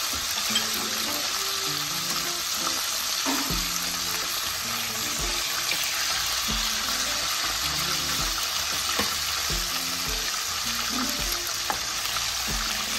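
Silver hake pieces sizzling steadily in hot mustard oil in a stainless steel pan, with a few clicks and scrapes of a nylon spatula against the pan as the fried pieces are lifted out.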